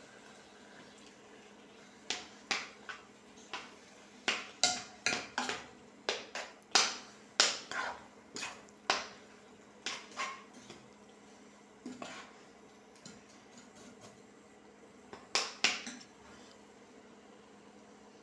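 Metal spoon knocking and scraping against the inside of a non-stick cooking pot while meat, frik and chopped herbs are stirred and turned; sharp clicks come in quick clusters through the first half and again briefly near the end, over a faint steady hum.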